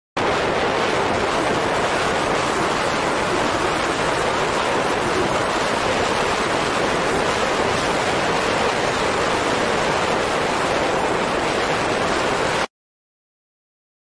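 Steady, even rushing hiss like static, with no change in level or pitch; it starts abruptly just after the start and cuts off suddenly near the end.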